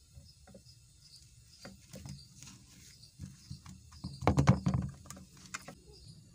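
Hand patting and turning fish pieces in dry gram flour in a bowl: soft taps and rustles, with a short run of louder knocks about four seconds in. This is the second dip in gram flour before frying.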